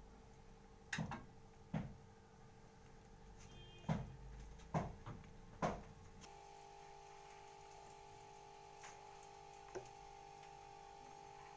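Raw potato wedges patted dry with a cloth on a plate: about seven soft thumps and knocks in the first six seconds. Then only a faint steady hum with two light ticks.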